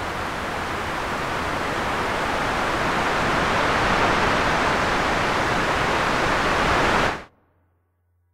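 Ocean surf ambience: an even rushing wash of wave noise that swells slowly, then cuts off abruptly about seven seconds in.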